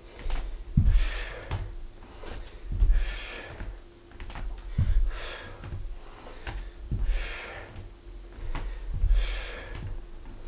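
Hard breathing from a man exercising, a loud breathy exhale about every two seconds. Each exhale comes with a low thud of a bare foot landing on a wooden floor as he steps back into a lunge.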